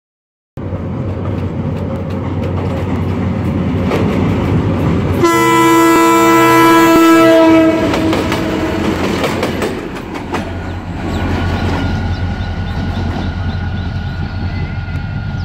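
GMU-30 diesel-electric locomotive running past with engine rumble and wheel-on-rail noise. About five seconds in it gives one long blast of its multi-tone horn, lasting some two and a half seconds. A faint steady high whine sits under the running noise in the later seconds.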